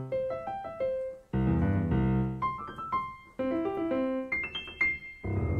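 Piano playing C-major arpeggios (C–E–G), the notes of the chord taken one at a time in quick runs up and straight back down in different octaves. A few fuller chords ring out among them, one about a second in and another near the end.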